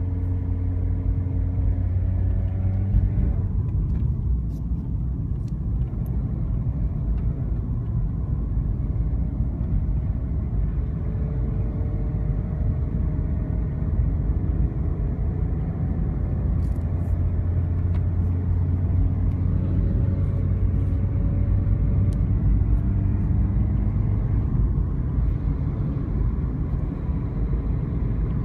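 BMW 116i (E87) four-cylinder petrol engine pulling under acceleration, its note climbing and falling slowly over a steady low rumble. This is the rev range where the owner reports a weird noise from the hot engine between 2000 and 3000 rpm.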